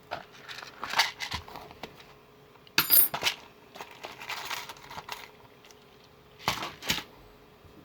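Small metal hand tools clicking and clinking while the end of a 24-gauge PTFE-insulated wire is stripped. Scattered light clicks and scrapes come first, then a sharp ringing metallic clink about three seconds in and a pair of loud clicks near the end.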